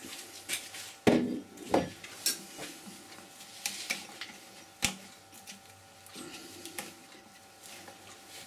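Irregular knocks and clinks of wood and metal tools, the loudest about a second in and another sharp one near five seconds, over a faint steady hum.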